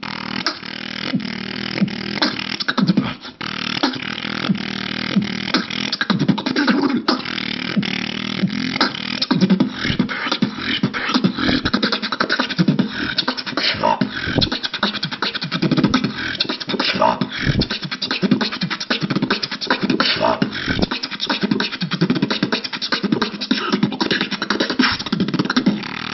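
Solo human beatboxing: one performer making kick, snare and other percussive mouth sounds in a fast, dense, continuous rhythm, with a few short pitched notes in the middle.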